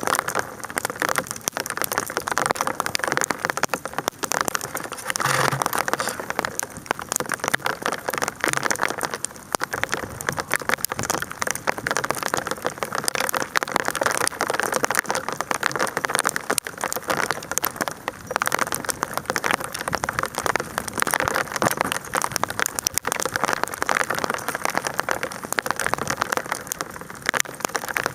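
Hail falling: a dense, steady patter of countless small impacts.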